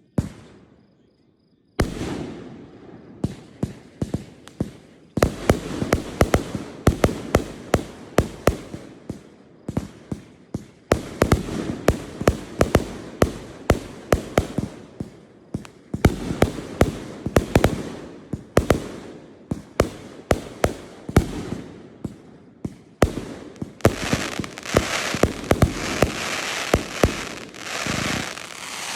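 Fireworks display: aerial shells bursting in rapid succession, dozens of sharp bangs each followed by an echoing rumble. In the last few seconds the bursts merge into a dense, continuous crackle.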